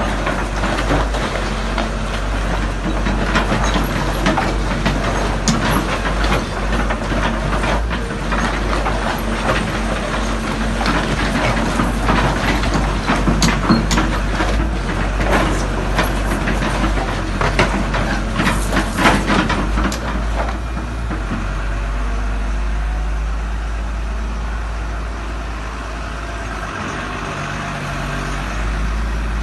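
Sumitomo S280F2 hydraulic excavator working: its diesel engine runs steadily with a strong low hum, overlaid with frequent metallic clanks and knocks. After about twenty seconds the knocks stop and only a smoother, steady engine sound remains.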